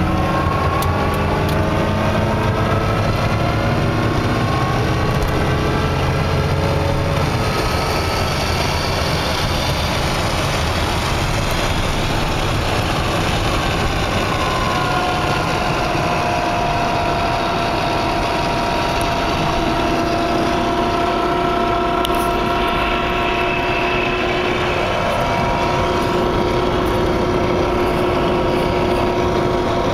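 Chevrolet G20 conversion van's 350 V8 pulling under acceleration, heard from inside the cab, its pitch climbing over the first several seconds. It then settles into steady highway cruising, with road and wind noise and a faint steady whine.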